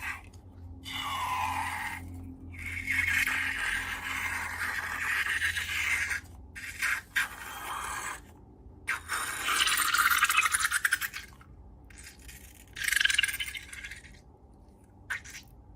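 Slime being worked, with crackly, squishy scraping in four bursts: a short one about a second in, a long one lasting about three seconds, another around the middle, and a brief one near the end.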